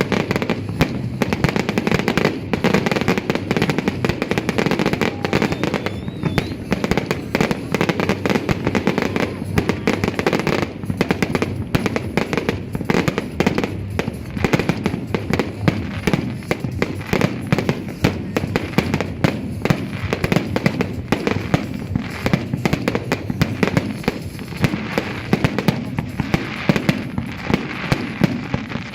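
Fireworks and firecrackers going off without a break: a dense, rapid crackle of many small bangs and pops.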